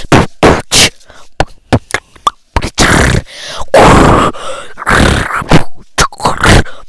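A boy beatboxing into a headset microphone: quick, irregular sharp mouth hits, with a few longer held sounds in the second half.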